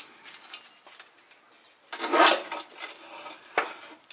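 Steel steering stem of a 1969 Honda CT70's front fork being lowered out through the frame's steering head tube, metal scraping and clinking against metal. There is a louder scrape about two seconds in and a sharp click near the end.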